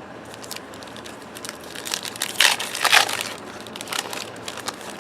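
Foil trading-card pack wrapper crinkling and tearing, loudest about two and a half to three seconds in, amid small clicks and rustles of the cards being handled.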